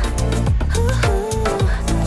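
Background music with a steady drum beat, a deep bass line and a gliding lead melody.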